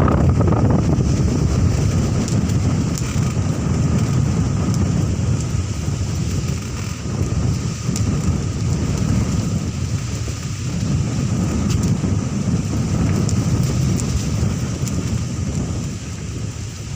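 Strong gusting wind buffeting the microphone: a loud, deep rumble that swells and eases without a break.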